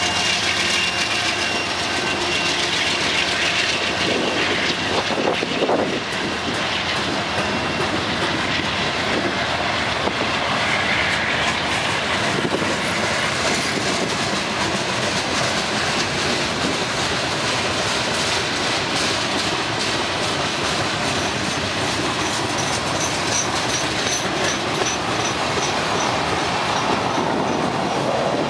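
Union Pacific freight train passing close by. The diesel locomotives' engine drone is heard in the first few seconds, then a steady, loud rush of boxcars rolling past on the rails.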